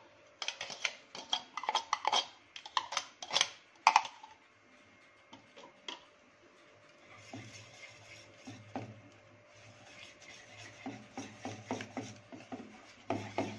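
A metal spoon clinks and scrapes against glass and steel bowls as chopped onion is tipped into a steel bowl of egg-and-flour batter. After a short lull, a wire whisk stirs the batter with a soft steady scraping and light, fairly regular taps against the bowl.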